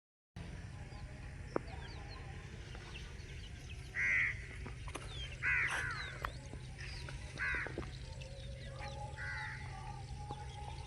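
Chicks peeping with many short chirps, broken by four louder, harsh calls spaced about two seconds apart from about four seconds in. A steady low hum runs underneath.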